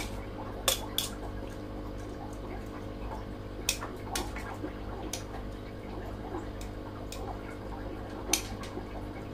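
Metal kitchen tongs clinking against a glass jar and a stainless steel bowl while mango slices are packed in: a handful of short, sharp clinks spread out, over a steady low background hum.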